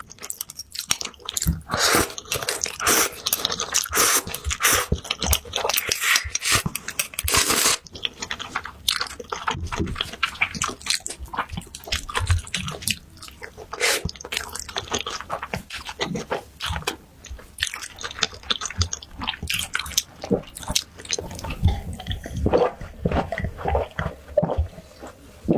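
Close-miked chewing and mouth sounds of someone eating noodles: a steady run of small, irregular wet clicks.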